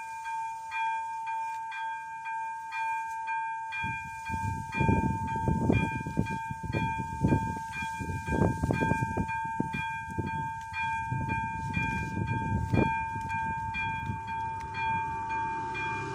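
AŽD 71 level crossing warning bell ringing steadily, a clear ding repeated about twice a second, signalling an approaching train. From about four seconds in, irregular low rumbling comes and goes beneath it.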